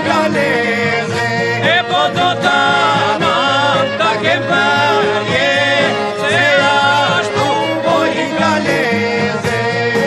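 Albanian folk song with singing: a wavering, ornamented melody line over steady instrumental accompaniment.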